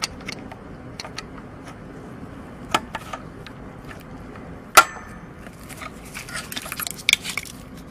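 Small metallic clicks and taps of a screwdriver tip working the return spring onto the throttle linkage of a Mercedes V8 throttle body. A few light clicks come first, then one sharper click about five seconds in, then a quick run of small clicks near the end.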